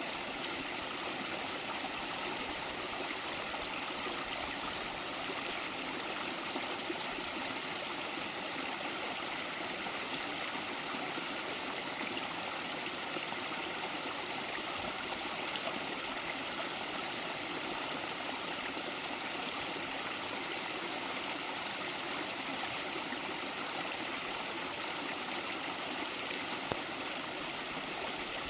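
Stream water flowing steadily over rocks, a continuous rushing and trickling.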